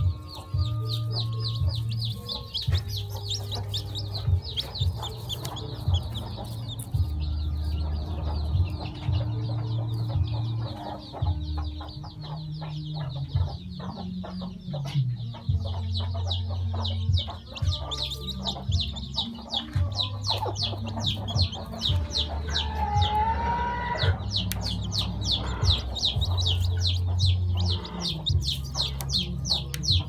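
Newly hatched chick peeping: a continuous stream of quick, high-pitched chirps, about five a second. A short lower call breaks in about two-thirds of the way through.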